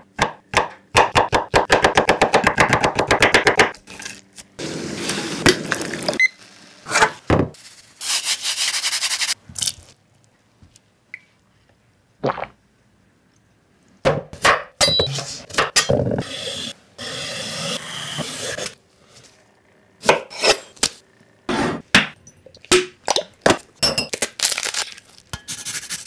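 Close-miked food-prep sounds on a bamboo cutting board: a metal fork rapidly stabbing a raw chicken breast, the pokes speeding up into a fast patter over the first few seconds. Later come many separate sharp knocks and scrapes of prep on the board, and near the end a microplane grater rasps over a glass bowl.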